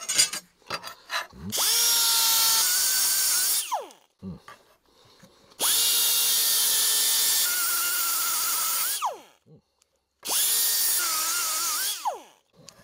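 Air-powered die grinder with an abrasive stone run in three bursts. Each burst spins up with a rising whine over a loud hiss of exhaust air. The whine wavers as the stone grinds the edges of the steel charcoal grate's slots, then falls away as the trigger is released.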